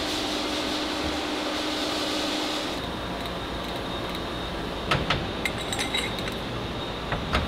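Machine-shop hum with a steady hiss and a low tone for the first few seconds, then a series of sharp metal-on-metal clinks and knocks as steel tools and workpieces are handled, loudest about five seconds in and near the end.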